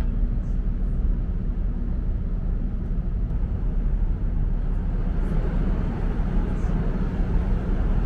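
Wind rumbling across the microphone on the open deck of a ferry, steady and low, with a rushing hiss that grows stronger about five seconds in.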